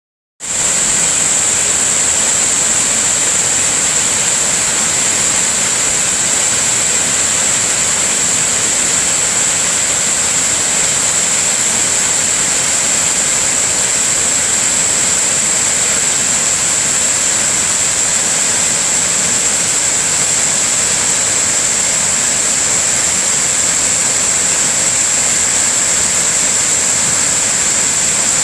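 Waterfall: a steady rush of falling water with a thin high hiss over it, cutting in abruptly about half a second in.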